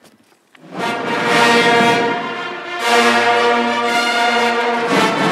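Brass band playing long held chords that swell and fade, coming in under a second in.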